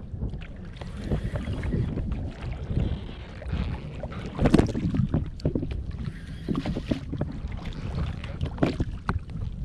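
Sea water lapping and slapping against a kayak hull, with wind buffeting the microphone: a steady low rumble broken by irregular knocks and splashes, the loudest about four and a half seconds in.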